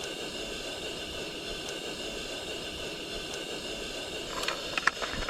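Camping cooking stove burner hissing steadily under the pan, with a few short clicks or taps near the end.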